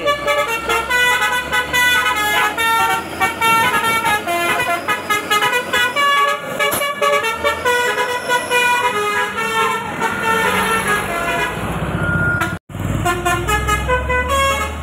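Truck's telolet 'basuri' multi-tone air horn playing a fast melody of short notes, with the truck's engine running low underneath. It cuts out for an instant near the end.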